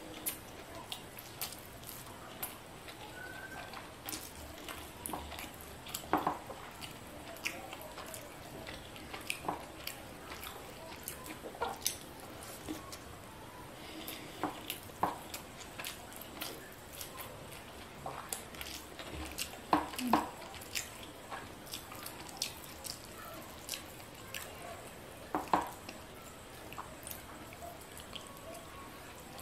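Close-up eating sounds of a person eating rice and fried fish by hand: chewing with irregular mouth clicks and smacks, a few louder than the rest.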